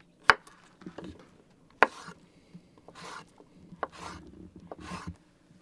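Knife cutting vegetables on a wooden cutting board: a few sharp knocks of the blade on the board, with short slicing and scraping sounds between them.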